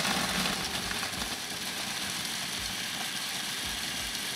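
Electric food processor running, its blade grinding Marie biscuits into fine crumbs: a steady motor whirr under a rushing hiss of crumbs whirling in the plastic bowl, a little louder at first.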